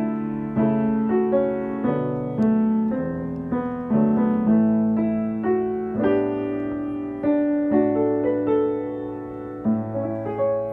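Grand piano played at a gentle, unhurried pace: melody over held bass notes. The phrase winds down with closing chords struck near the end and left to ring.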